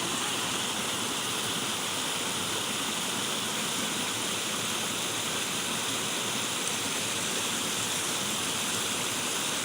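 Running water rushing steadily, an even hiss with no breaks.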